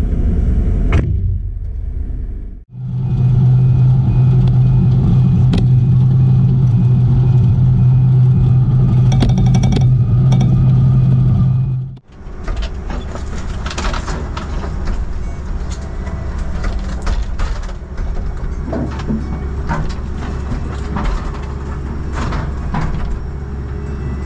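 Diesel engine of a Cat 312CL excavator running, with a strong steady hum in the middle stretch. The sound cuts off abruptly twice. In the last half the engine rumble is joined by scattered knocks and clatter from demolition debris.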